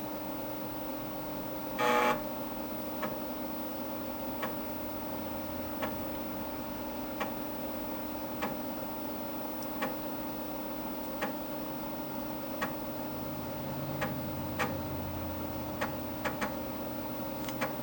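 Dimension 68000 computer humming steadily while it loads a game under IBM PC emulation. There is a short beep about two seconds in, then sharp clicks from the disk drive about every one and a half seconds as the slow load goes on.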